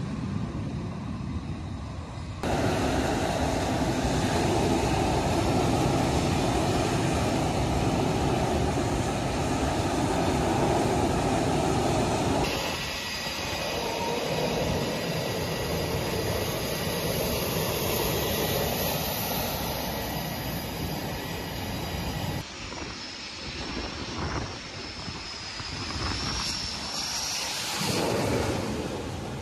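Jet aircraft engines running on a carrier flight deck: a dense rushing noise with a steady high whine, which rises slightly near the end. The sound jumps abruptly three times where different shots are cut together.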